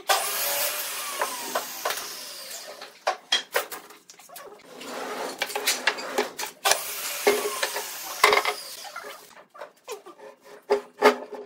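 Hand-work noises on a glued-up wooden blank as its steel bar clamp is taken off and it is moved: short squeaky scrapes, crinkling plastic sheeting and a series of sharp wooden knocks and clunks.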